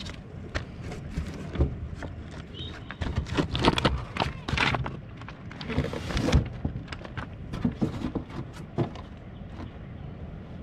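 A run of irregular knocks and clatters, with a few louder rustling bursts near the middle.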